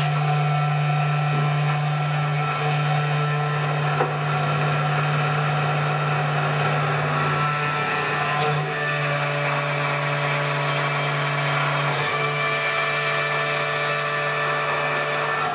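CNC 6090 router's spindle running and its end mill cutting aluminium plate: a steady low hum with several higher whining tones over the noise of the cut. A single sharp tick sounds about four seconds in, and the tones shift slightly about halfway through.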